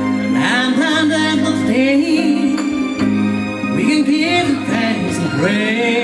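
A man singing a slow love ballad with vibrato over steady held backing chords.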